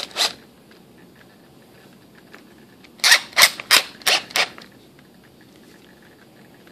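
Sharp clicks from a cordless drill's chuck being turned and tightened by hand: a couple of clicks at the start, then about five quick, loud clicks in a row around the middle.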